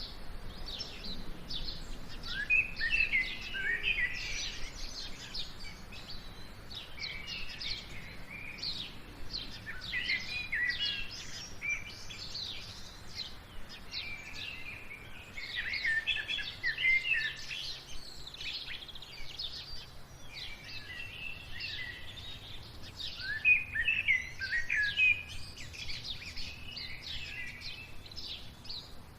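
Small birds chirping and twittering in dense, overlapping clusters of quick high calls, with short lulls between clusters.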